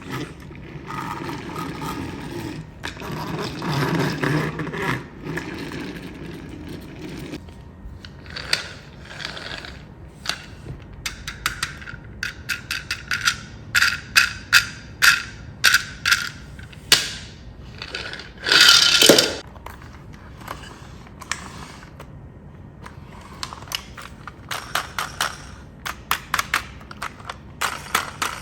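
Scraping for the first several seconds, then a long run of sharp clicks and clacks of small hard objects, with a brief louder rattling burst a little past the middle.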